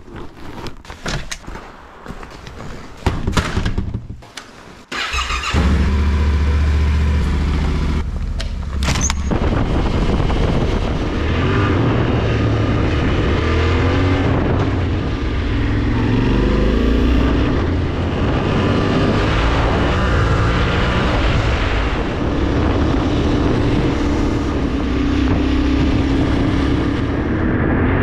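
A few knocks and clatter, then about five seconds in a Yamaha Ténéré 700's parallel-twin engine starts and runs. The motorcycle then rides off, its engine pitch rising and falling as it accelerates and shifts through the gears.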